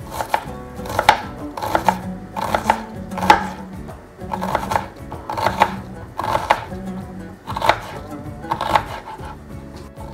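Kitchen knife dicing an onion on a cutting board: quick runs of blade taps against the board, in bursts about every half second to second.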